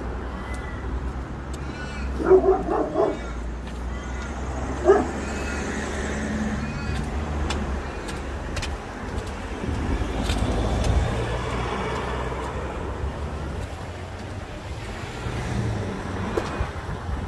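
A dog barking several times about two seconds in, then once more near five seconds, over steady road traffic, with a car passing at about ten to twelve seconds.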